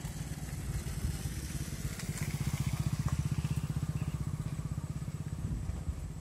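A small vehicle engine running with a low, rapid pulsing beat, growing louder toward the middle and fading again as it passes by out of sight.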